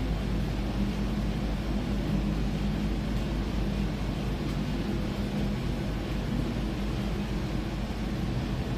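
Steady low drone and hum of a cruise ship's engine-room machinery and ventilation, unchanging throughout.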